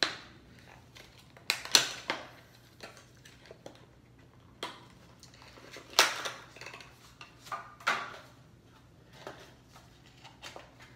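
Boxed fishing-lure packaging handled and turned over in the hands: scattered plastic clicks and crinkles. The sharpest come about two seconds in and at six seconds.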